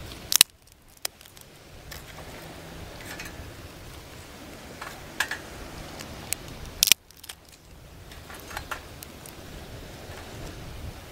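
Sticks and wood pieces knocking and clinking against a small folding metal bushbox twig stove as kindling is fed in over a burning hexamine block. There are a handful of separate sharp clicks, the loudest about seven seconds in, over a faint low background noise.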